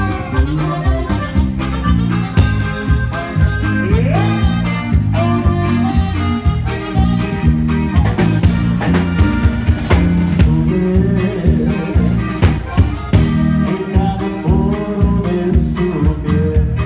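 Live norteño band playing: saxophone and accordion over bajo sexto, electric bass and drum kit, with a steady beat.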